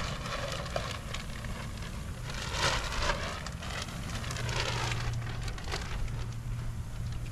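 Blue painter's tape being peeled off a fibreglass boat hull from along a freshly laid sealant line, a crackling rip that is densest about two and a half seconds in and again near five seconds, over a low steady hum.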